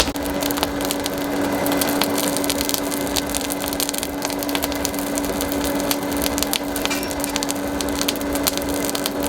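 An electric power tool runs with a steady motor hum while working wood, with dense crackling and splintering throughout.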